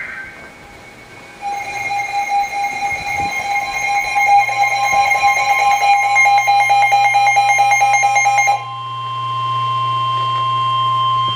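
Emergency Alert System two-tone attention signal blaring about a second and a half in, a harsh, fast-pulsing pair of tones. It is the signal that an emergency alert, here severe thunderstorm warnings, is about to be read. About two-thirds of the way through it changes to a different, steadier tone.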